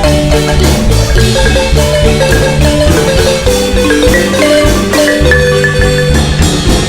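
Marimba music: a quick melody of rapidly struck mallet notes over a steady bass line.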